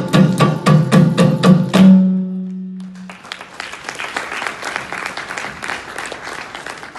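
Carnatic percussion, with a kanjira among the drums, playing quick strokes that close on a final ringing low note about two seconds in. Then audience applause, quieter than the drumming.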